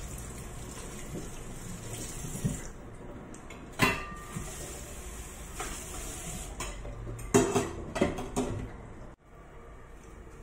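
Kitchen sink clatter: a few sharp knocks and clinks of dishes and cutlery against a stainless-steel sink, with water running in short spells. Under it is a steady low background hum.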